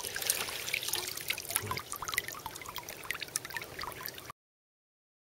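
Water splashing, trickling and dripping around a landing net holding a freshly caught fish, with many small drips and splashes. The sound cuts off abruptly about four seconds in.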